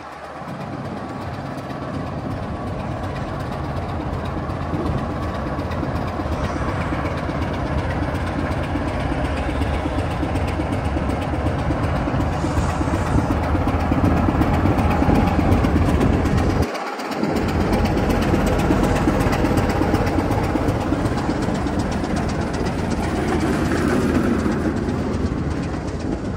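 Diesel-hauled heritage train running on the line: a steady rumble of engine and wheels on the rails that grows louder over the first dozen seconds, with a brief dip in the low rumble about two-thirds of the way through.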